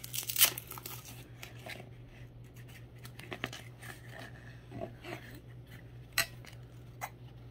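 Steel throwing axes being handled and pulled from the straps and loops of a nylon carrying case: soft fabric rustling with a few sharp metal clicks and clinks. The loudest click comes about half a second in.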